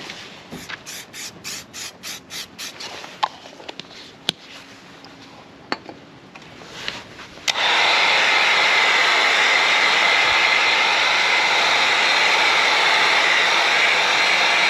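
An aerosol can of grey primer being shaken, its mixing ball rattling about three times a second, then a few clicks, and from about halfway through a steady spray hiss from the can. The can is cold, and the painter finds it is not spraying properly.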